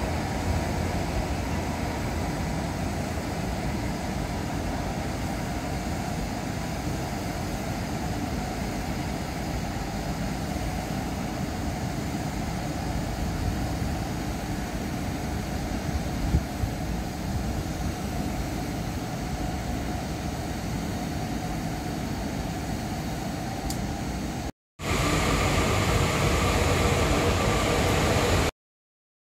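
Steady rumble and hum of a PKP EN57 electric multiple unit running. About 25 seconds in it cuts off abruptly. A louder, steady rumble follows from a ZSSK Cargo class 131 twin electric locomotive with coal wagons, and it too cuts out near the end.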